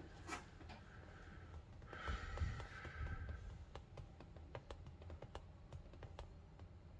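Faint, scattered small clicks in a quiet room, with a short breath about two seconds in.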